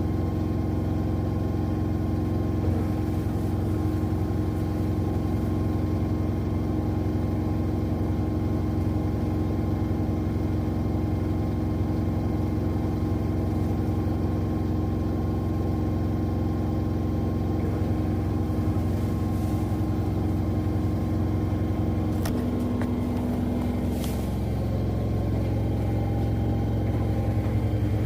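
Two washing machines, an LG Centum and a Zanussi, spinning side by side with a steady hum of several fixed tones. About two-thirds of the way through the pitch pattern shifts as one drum changes speed, with a couple of sharp clicks.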